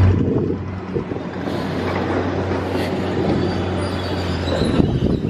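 A heavy vehicle or machine running with a strong, steady low hum, with faint high-pitched squealing toward the end.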